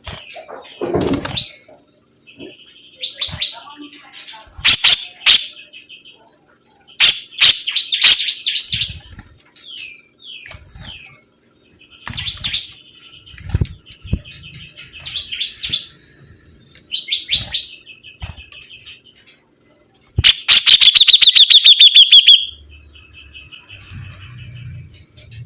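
A sibuntung songbird singing: bursts of rapid chattering trills separated by short pauses. The loudest is a fast, slightly falling trill about twenty seconds in.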